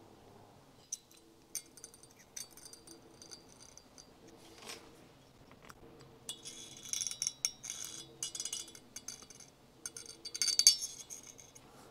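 Steel scribe scratching a marking line inside a two-stroke motorcycle cylinder bore, drawn along a piston ring to mark the new port height. A few light metal ticks come first, then two spells of fine scraping.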